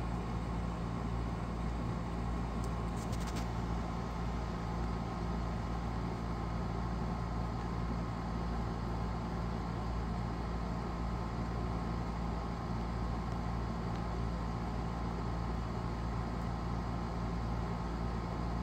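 A steady low machine hum with an even drone that does not change, and a brief cluster of faint ticks about three seconds in.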